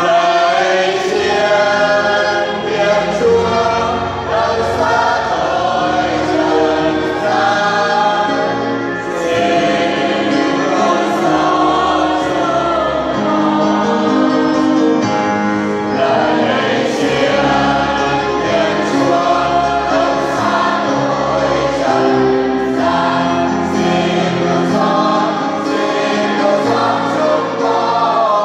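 Catholic church choir singing a hymn, continuously, with sustained held notes.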